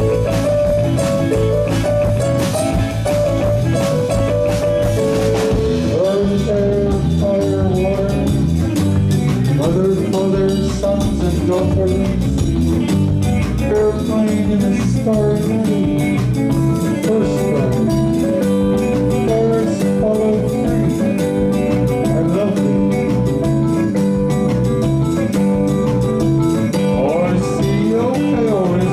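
A rock band playing live, a blues-tinged number with guitar and held melody notes over bass and drums, steady and loud throughout.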